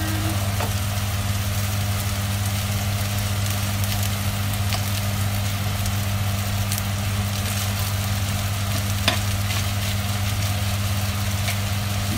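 Chicken sisig frying and sizzling in a frying pan and a sizzling plate over gas burners, with a spoon stirring through the pan. A steady low hum runs underneath, and one sharp tap comes about nine seconds in.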